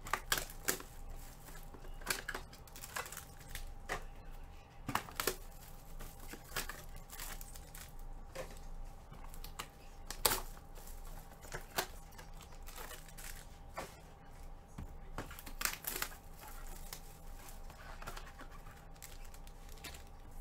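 Irregular crinkling and sharp clicks of foil trading-card packs and cards being handled, over a faint steady tone.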